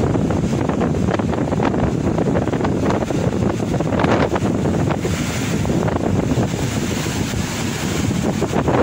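Ocean waves breaking and washing around shore rocks, with heavy wind buffeting the microphone.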